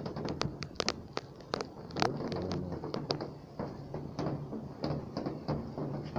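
Water dripping irregularly onto hard surfaces and puddles after heavy rain: a run of sharp taps and plinks, several a second, over a low steady background hum.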